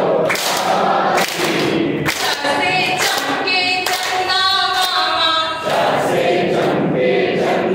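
A group of men and women singing together, an action song, with a few thuds in the first two seconds.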